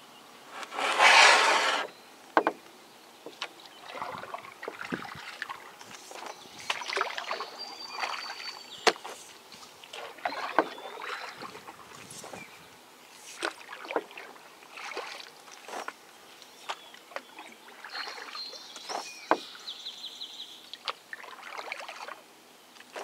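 Canoe on the move: irregular short swishes of a paddle through the water and sharp knocks against the canoe's hull, with one louder rushing swish about a second in.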